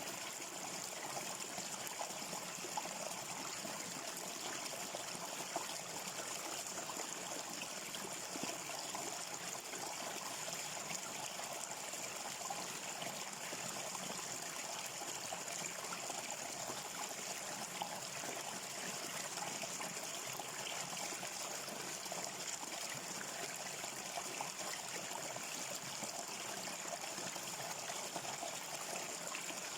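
Small stream running and trickling steadily, with a constant high hiss above it.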